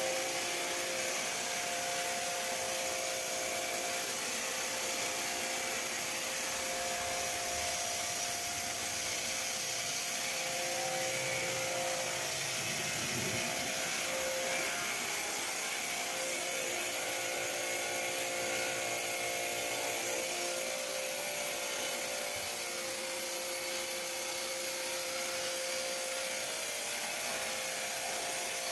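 Kärcher K5 pressure washer running with a wet-sandblasting nozzle, its jet of water and abrasive sand hissing steadily against a metal pot to strip oil paint and varnish, with a steady whine from the machine underneath.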